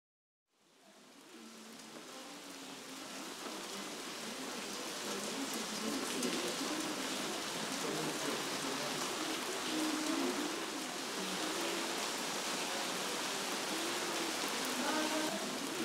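Steady rain falling, fading in from silence over the first few seconds and then holding even.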